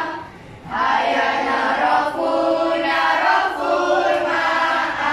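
A class of schoolchildren singing together in unison. There is a brief break about half a second in, then one continuous sung phrase with held notes.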